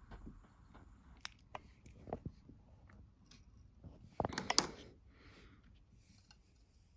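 Faint hiss of a lighter flame at the start, then a few light clicks and taps of small metal pieces handled on a wooden workbench, with a short louder clatter about four seconds in.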